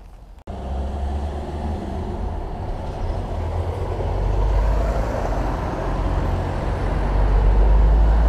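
Low, steady rumble of a motor vehicle's engine running close by, starting suddenly about half a second in and slowly growing louder.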